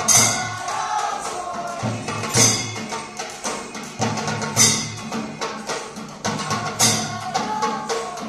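Drum-led music with a steady beat and a bright, crash-like accent about every two and a quarter seconds.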